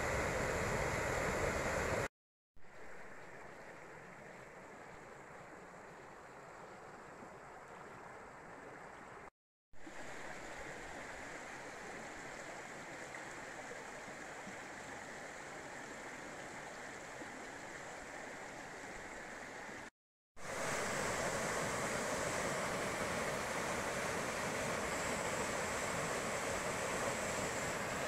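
Waterfalls on a rocky creek rushing steadily, a continuous hiss of falling water. It is broken by three short silent gaps and is quieter through the middle stretch than at the start and near the end.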